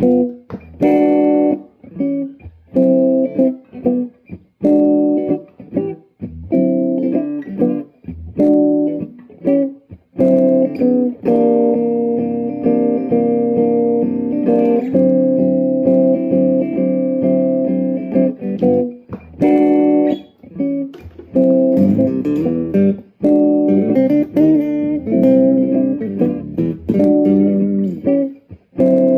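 Acoustic guitar played through a Behringer UO300 octave pedal with the dry signal mixed in: a repeating rhythm of chord strokes, with a stretch of held, ringing notes in the middle.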